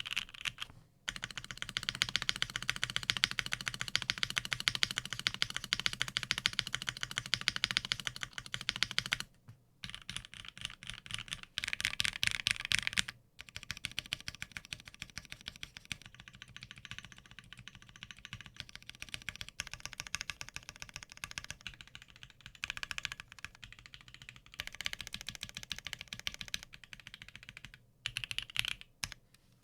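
Typing on a Bakeneko60 custom mechanical keyboard with lubed and filmed C3 Equalz Tangerine linear switches, an FR4 plate and JTK ABS doubleshot keycaps: a fast, dense run of keystrokes. It breaks off briefly about a second in, then near nine and thirteen seconds, and is a little lighter after that.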